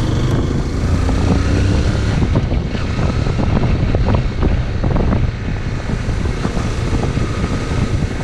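Liquid-cooled single-cylinder engine of a Zontes X1 350 motorcycle running under way, with heavy wind noise buffeting the microphone.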